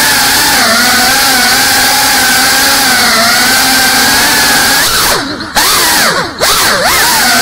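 GEPRC CineLog35 cinewhoop FPV drone's motors and ducted propellers whining at a steady throttle. About five seconds in, the pitch swings quickly up and down with short drops in loudness as the throttle is punched and cut during tricks.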